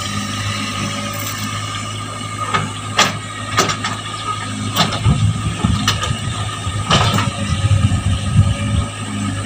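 Compact hydraulic excavator's engine running steadily with a constant high whine, the engine surging under load as the bucket digs, and several sharp metal clanks scattered through.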